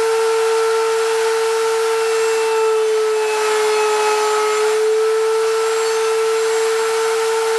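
Electric router mounted under a homemade router table, running at speed with a steady high whine. About three seconds in, the pitch sags slightly and a rougher cutting noise rises for a couple of seconds as the bit cuts into the strip of wood fed across the table.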